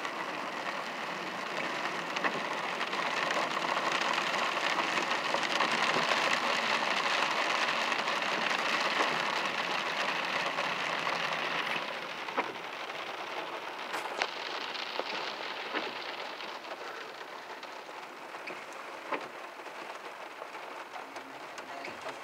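Heavy rain falling in a dense, steady hiss, with a few sharp drop ticks. It is louder through the first half and eases noticeably about twelve seconds in.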